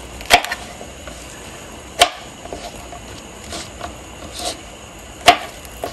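Chef's knife cutting okra on a plastic cutting board: three sharp knocks of the blade hitting the board, just after the start, about two seconds in and near the end, with a few fainter taps between.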